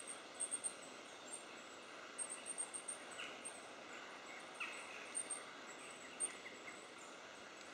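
Goldcrest calling: clusters of very high, thin notes in quick series, several times over. Other woodland birds give a few lower, falling notes.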